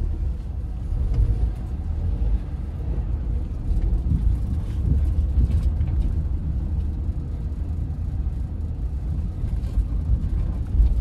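Steady low rumble of a taxi driving, engine and road noise heard from inside the cabin.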